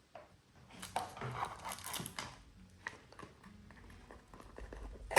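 Packaging rustling and scattered light clicks as a smart touch wall switch is taken out and handled, ending in one sharp knock.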